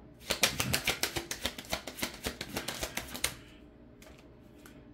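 A deck of cards being shuffled: a fast run of crisp clicks, about ten a second, that stops a little over three seconds in.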